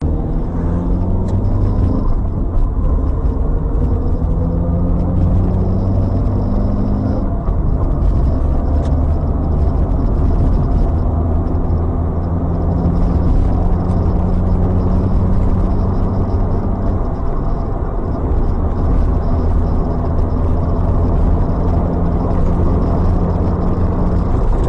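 Steady engine and road rumble of a moving car, a dense low drone with the engine note shifting a few times.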